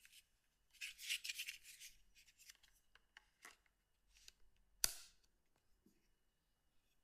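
Faint handling noise from a Sony CM-H777 mobile phone: a second or so of rubbing and scraping, then a few light clicks and one sharp click near the five-second mark.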